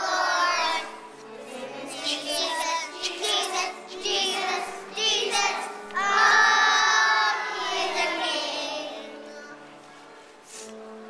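A group of young children singing loudly together over an instrumental accompaniment. The singing dies away about nine seconds in, leaving only the accompaniment playing.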